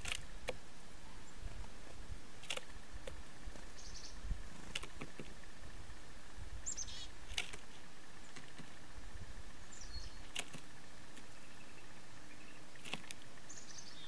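Blue jay pecking at seed on a wooden bird table: sharp single taps every two to three seconds. Short, high bird chirps come in between, several of them falling in pitch.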